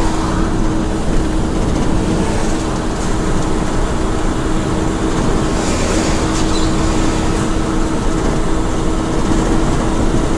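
Cab interior noise of a Mitsubishi Fuso heavy truck under way: the engine's steady drone with a constant hum, mixed with road and tyre noise. A brief rise in hiss comes about six seconds in.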